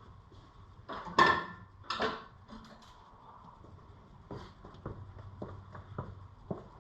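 Metal clanking as loose metal parts are handled and set down: two ringing clanks about a second and two seconds in, then light clicks and taps.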